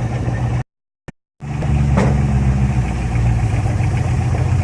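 Off-road truck engine running steadily at low revs, a close, even hum. The sound cuts out completely for under a second near the start, then resumes louder, with one sharp click about two seconds in.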